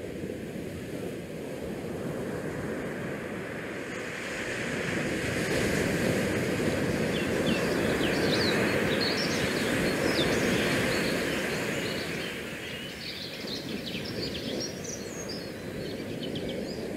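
Steady rushing wind noise across the open ship's deck and the action camera's microphone, swelling in the middle and easing off again. A scatter of short high chirps runs over it from about a third of the way in until near the end.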